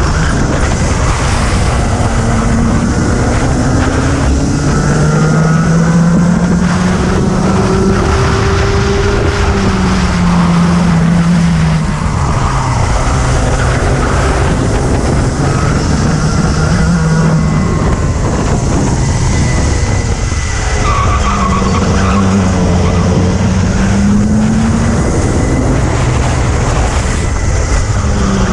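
Racing kart engine heard from the kart itself, running hard, its pitch climbing and falling every few seconds as the kart speeds up and slows for corners.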